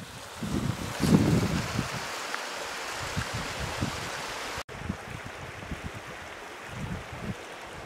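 A small moorland stream running over rocks under snow, a steady rushing hiss, with low gusts of wind buffeting the microphone, strongest about a second in. The sound drops out for an instant a little past the middle.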